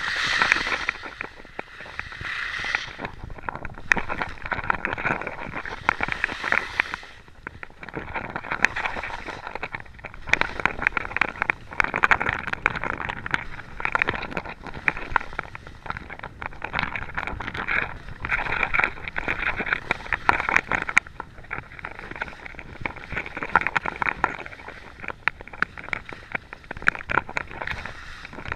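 Skis scraping and hissing over packed snow during a downhill run, swelling and fading every few seconds as the turns load the edges, with wind buffeting the microphone.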